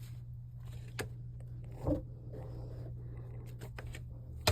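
Light handling noise of plumbing parts: a few faint scrapes and short clicks, with a sharper click at the end, over a steady low hum.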